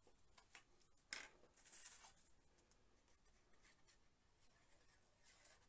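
Faint paper sounds of a cardstock panel being handled and glued, with the tip of a liquid glue bottle rubbing across the card. Short rustling scrapes come about a second in, again about two seconds in, and near the end.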